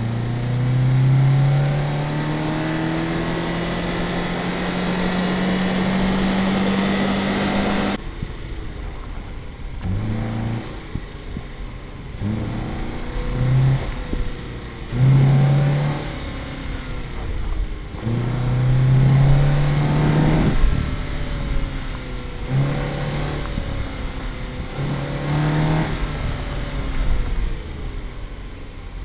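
Subaru Crosstrek's flat-four engine pulling steadily under acceleration, its pitch slowly rising for about eight seconds before cutting off abruptly. Then a string of short revs, each rising and dropping back.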